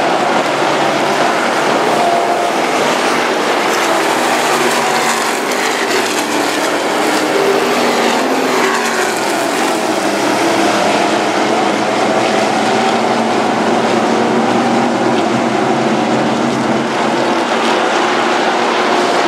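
Several IMCA Stock Cars racing on a dirt oval, their V8 engines running hard together. The engine notes rise and fall as the cars go through the turns.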